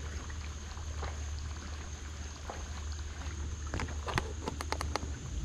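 Steady low hum of an electric trolling motor pushing a small bass boat, with a thin high steady whine above it. About four seconds in comes a quick run of sharp clicks and knocks as the rod and reel are handled against the boat.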